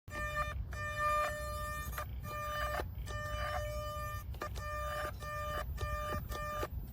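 The DEERC RC boat's small electric motor running with a steady high whine that breaks off briefly again and again, over a low rumble.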